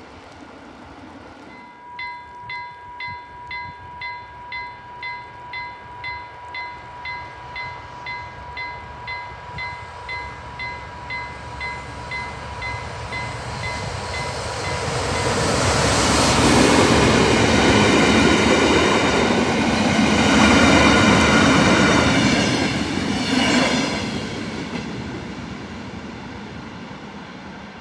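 A level-crossing warning bell rings about twice a second. Then a diesel locomotive hauling a heavy-load freight wagon approaches and passes, rumbling loudest just past halfway and fading near the end.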